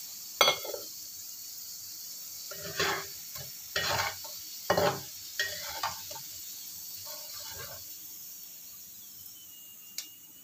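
Potato wedges sizzling steadily in hot oil in a nonstick wok. A spatula scrapes and knocks against the pan several times as the fries are scooped out, with a single sharp click near the end.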